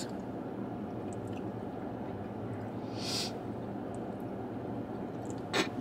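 Low steady hum of a car cabin, with a short soft hiss about three seconds in.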